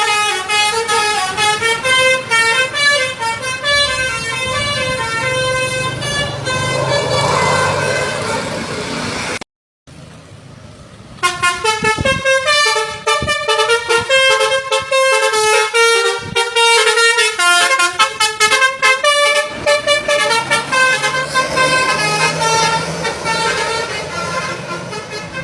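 Tour bus basuri telolet horn, a multi-tone musical horn, playing rapid runs of notes that jump between pitches, over the low rumble of the bus. The sound breaks off for about a second and a half a little before the middle, then another horn sequence starts.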